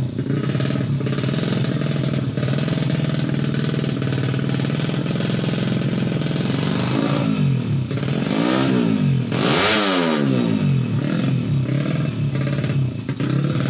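Honda Supra X 100 single-cylinder four-stroke engine, bored up to 130cc, idling steadily, then revved in a few quick throttle blips past the middle of the clip, the highest and loudest about two-thirds through, before dropping back to idle.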